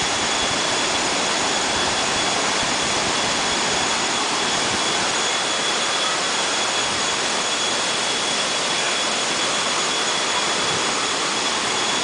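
Steady rush of a stream cascading over rock slabs, an even, unbroken roar of white water.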